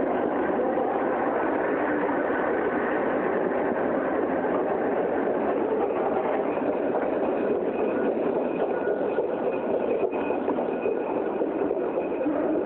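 Steady mechanical running noise of a moving escalator being ridden, with a faint high whine coming in about halfway through.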